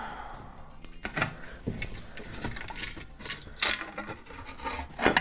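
Carbon-fibre cooling shroud of a paramotor engine being worked loose and pulled off the cylinder by hand: irregular rubbing and scraping, with scattered light clicks and knocks of parts against the engine and wooden bench.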